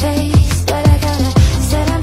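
Electronic pop music with a heavy, deep bass-drum beat about twice a second, a sustained bass line and a synth melody.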